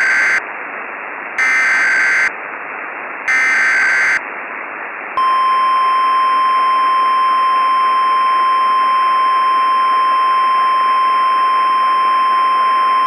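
Emergency Alert System alert: three short screeching bursts of SAME digital header data, then a long, steady, high-pitched attention tone starting about five seconds in, all over a bed of radio-like hiss.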